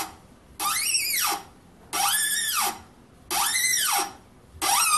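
A 6 mm metric tap squeals as it is turned by hand with a bar tap wrench, cutting a thread into a brass union. Each stroke of the wrench gives one squeal that rises and then falls in pitch, repeating about every second and a third.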